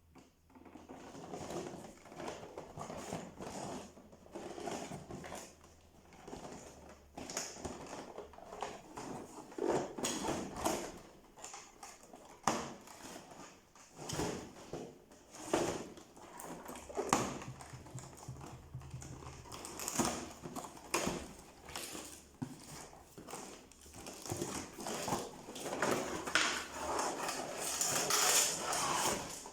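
Packaging being handled and opened by hand: irregular rustling with scattered taps, clicks and knocks of cardboard and plastic.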